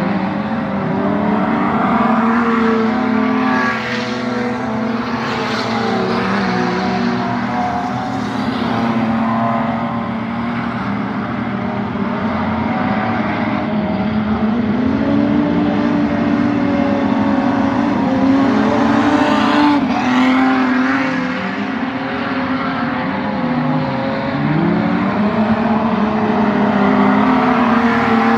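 A pack of speedway standard saloon race cars racing, several engines running at once, their pitch falling and rising again as the drivers lift off and accelerate, with one clear dip and climb near the end.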